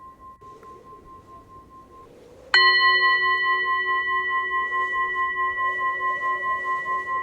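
A struck metal bell-like instrument, singing-bowl type. A faint earlier ring dies away about two seconds in, then a fresh strike about half a second later starts a loud ring of several steady tones with a wavering pulse, fading slowly.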